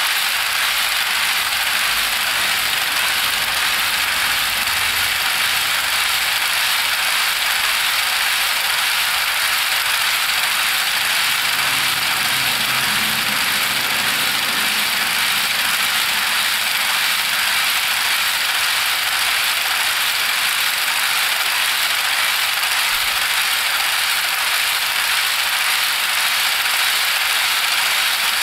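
HO scale covered hopper train rolling past, a steady, dense clicking rattle of many small wheels running over the rail joints and the double crossover turnout.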